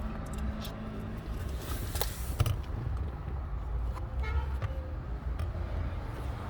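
A short car horn toot about four seconds in, over a steady low rumble with a few clicks.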